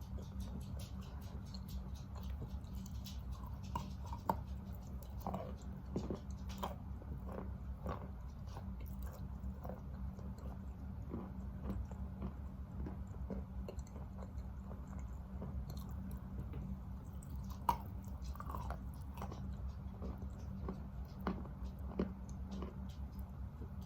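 Close-up chewing and biting of wet Khrapovsky chalk: irregular gritty crunches and soft mashing as the chalk is chewed down to a paste, with a few sharper bites. A steady low hum runs underneath.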